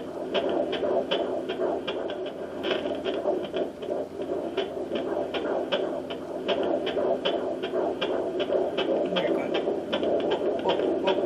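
Fetal heartbeat at 14 weeks, played through a handheld Facelake fetal Doppler's speaker: a fast, even 'whoop, whoop' pulse over a steady Doppler hiss.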